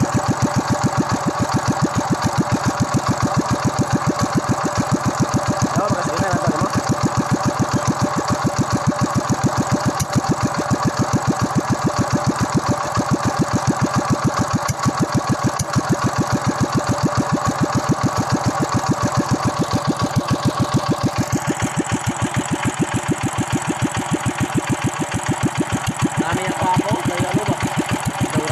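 Honda single-cylinder air-cooled small engine running steadily at idle, an even, rapid pulsing beat.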